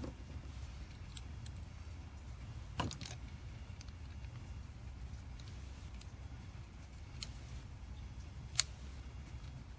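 Scattered light clicks and taps of small metal carburetor parts being handled on a workbench, with a sharper click about three seconds in and the loudest one near the end, over a steady low hum.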